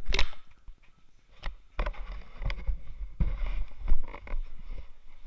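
Several sharp clicks and knocks, about six in all, over uneven rumbling from movement and rubbing against the microphone.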